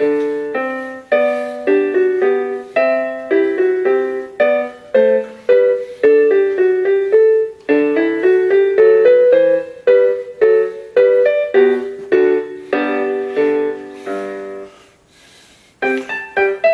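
Casio LK-250 electronic keyboard playing one of its built-in songbank tunes in a piano tone, melody over accompaniment. Near the end the tune dies away on a fading note, and the next song starts about a second later.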